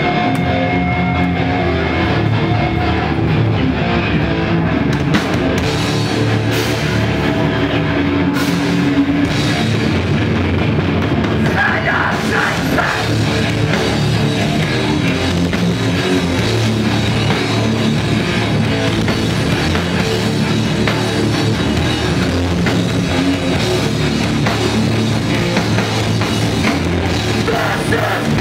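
Heavy rock band playing live at full volume: electric guitars, bass and drum kit, with vocals into the microphone.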